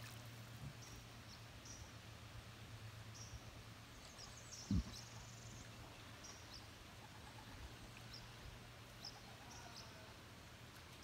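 Faint outdoor creek ambience: scattered short, high bird chirps over a steady low hum, with one soft low thump about five seconds in.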